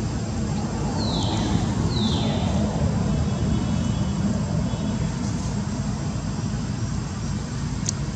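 Steady low outdoor rumble, with two short high-pitched calls sliding downward in pitch about a second apart, and a single click near the end.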